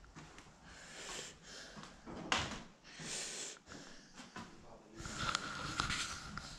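Movement noise of a person walking with a handheld camera: rustling and steps, with breaths close to the microphone, in irregular swells and a sharper burst about two seconds in.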